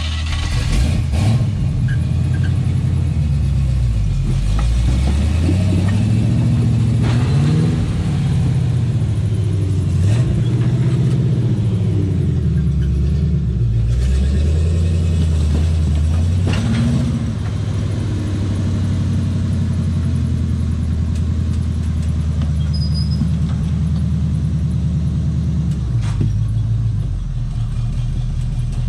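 Rock crawler truck's engine revving up and down under repeated blips of throttle as it crawls over boulders, then settling into a lower, steadier run in the last third. A few sharp knocks come through, from the rig working over the rocks.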